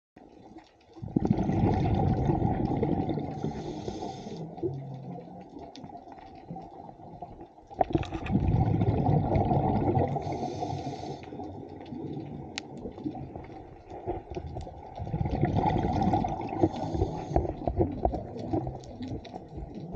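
Scuba diver breathing underwater through a regulator: three long surges of bubbling, about seven seconds apart, with quieter water noise in between.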